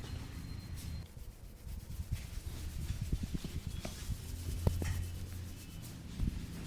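Hands rubbing and kneading over a person's scalp, hair and skin during a massage. A few faint taps come near the middle.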